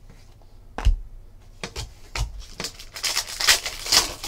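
A thump just under a second in, a few light knocks, then a foil trading-card pack wrapper crinkling as it is torn open, busiest near the end.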